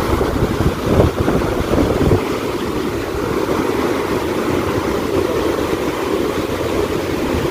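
Wind rumbling on the microphone over the steady wash of sea surf, gusting harder in the first couple of seconds.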